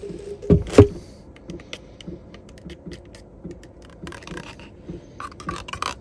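Metal spoon scraping and clinking inside an opened soup can, working out thick condensed cream of mushroom soup, with two louder knocks about half a second in.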